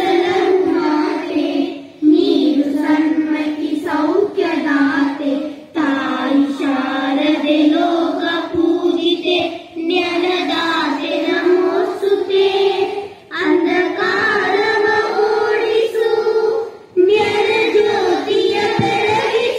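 Schoolchildren singing a Sanskrit prayer to the goddess Sharada together, in phrases of a few seconds each with short breaks for breath between them.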